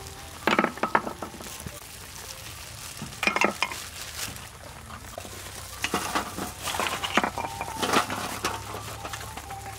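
A utensil stirring in a cooking pot, clattering and knocking against it in irregular bursts: about half a second in, around three seconds, and repeatedly in the second half.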